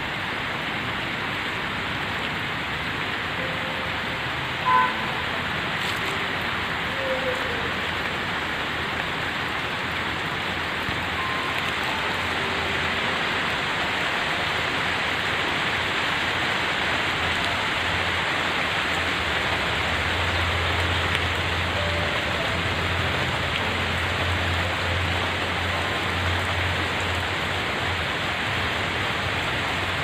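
Steady rain falling on trees, grass and a wet paved path, an even hiss with one brief louder knock about five seconds in. A low hum sits under the rain for several seconds in the second half.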